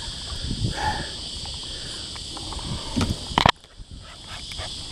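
Wind and water noise around a fishing kayak under a steady high-pitched hum, with one sharp knock on the kayak about three and a half seconds in.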